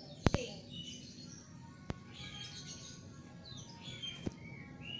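Small birds chirping and calling in the background, with a few sharp clicks: a loud double click just after the start, another about two seconds in and one just past four seconds.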